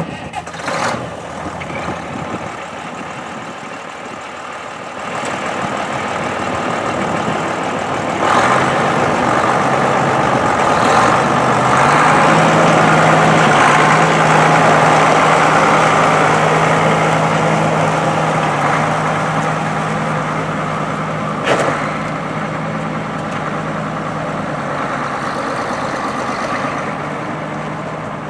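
J.I. Case 1070 tractor's diesel engine running steadily, rising in speed and loudness partway through and then slowly easing back. A single sharp clack sounds about two-thirds of the way in.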